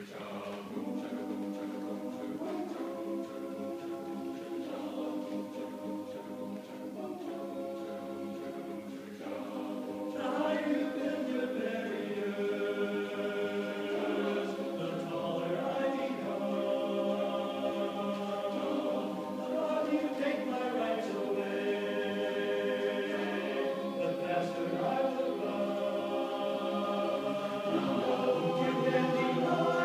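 Men's a cappella chorus singing sustained chords in close harmony, swelling louder about ten seconds in.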